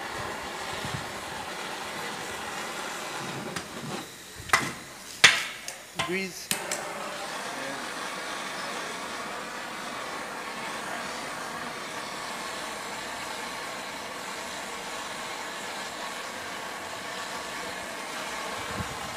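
Steady hiss of a handheld propane torch, with a few sharp clicks and knocks between about four and seven seconds in.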